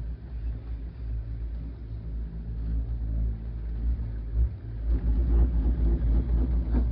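Uneven low rumble of wind buffeting the microphone aboard a moving aerial cable-car gondola, growing louder about five seconds in.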